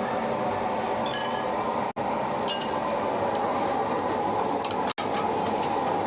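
A few light clinks of dishes and utensils over a steady rushing kitchen noise.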